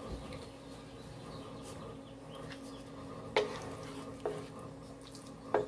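Wooden spoon stirring an onion mixture in an electric skillet over a faint, steady sizzle. In the second half the spoon knocks sharply against the pan three times.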